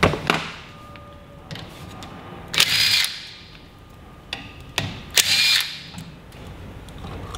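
Cordless drill-driver spinning out the 10 mm bolts of an outboard's reed-valve plate, in two short bursts of about half a second each. A few clicks of tools come in between.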